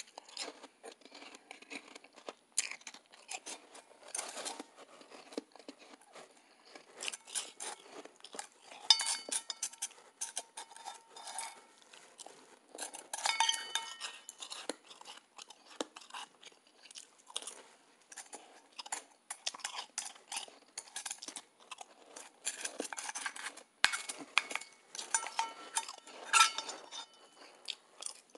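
Soft ice being crunched and chewed close to the microphone, with a plastic spoon scraping and knocking against a stainless steel bowl that rings briefly a few times.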